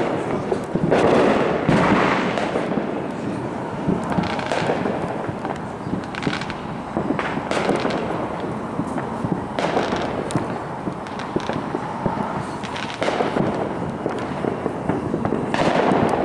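Fireworks display going off in quick succession: a dense run of bangs and crackling bursts that echo, loudest about a second in and again near the end.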